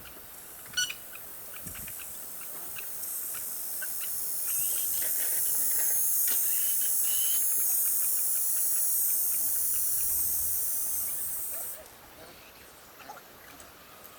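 A high, steady hiss that builds over a few seconds, holds, and cuts off suddenly near the end, with faint scattered clicks and taps.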